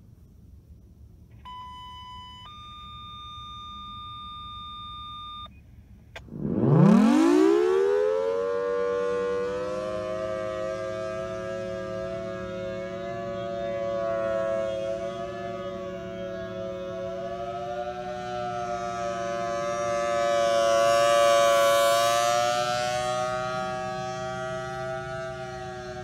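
Two short steady tones, a lower then a higher one, come first. Then the Federal Signal Thunderbolt 1000T civil defence siren winds up from a low growl to a loud, steady wail. Its pitch wavers slowly, which the recordist takes as a sign that it could use some maintenance, and its loudness swells and fades as the rotating horn sweeps around.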